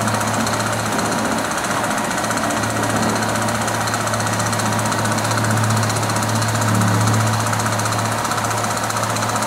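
Road-repair machinery running steadily, with a strong low hum and a fast, even hammering vibration.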